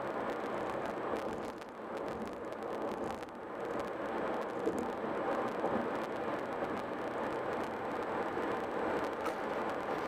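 Steady road noise of a car driving at highway speed: tyres rolling on the pavement, with wind.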